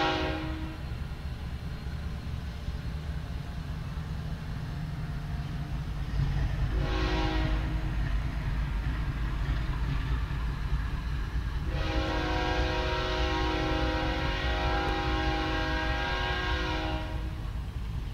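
Diesel freight train passing with a steady low rumble while a locomotive air horn sounds: one blast cuts off just as it begins, a short blast comes about seven seconds in, and a long blast follows from about twelve to seventeen seconds. This is the closing short-and-long of a grade-crossing warning.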